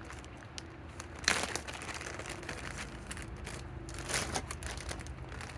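Rustling and handling noise, with two louder crinkling rustles about a second in and about four seconds in.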